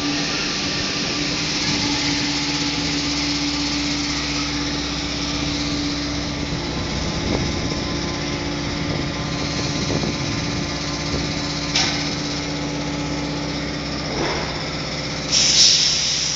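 Paris Métro MP89CC rubber-tyred train at the station, running with a steady hum. A short loud hiss comes near the end.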